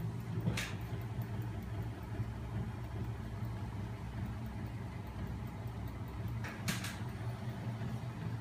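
Homemade magnet-motor machine running, driven by a small 12 V DC electric motor: its motor and spinning flywheels and crank linkage give a steady low mechanical hum. Two brief knocks, one about half a second in and a double one near the end.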